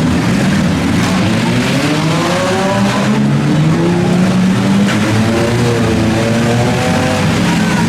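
Demolition derby cars' engines revving loudly, several at once, their pitch rising and falling as they accelerate and back off.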